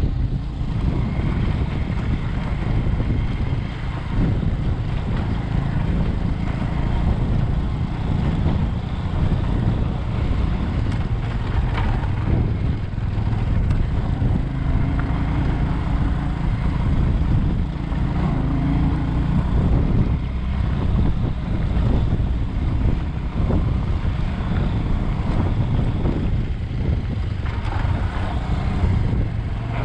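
Bajaj Avenger 220 motorcycle being ridden: its single-cylinder engine runs under wind rush on the microphone as a steady low rumble.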